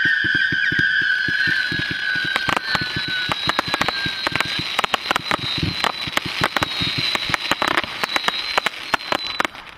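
Fireworks International Tiger's Revenge 168-shot firework barrage firing in rapid succession: a dense run of sharp cracks and pops over shrill whistling tails, the lower whistle dying away about halfway through. The shots thin out and stop near the end.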